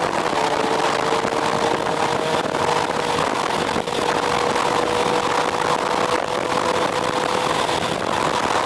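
Motorcycle engine running at a steady expressway cruise, its pitch holding nearly level with a slight rise, over a constant rush of wind noise.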